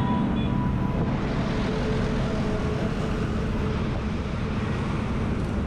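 Steady street-traffic noise in the rain: a continuous rumble and hiss of engines and tyres on wet road.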